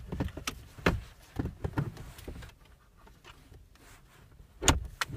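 Scattered clicks, knocks and rubbing as a car armrest is handled and seated on its base by hand. A sharp knock comes about a second in and the loudest knock near the end, with a quieter stretch between.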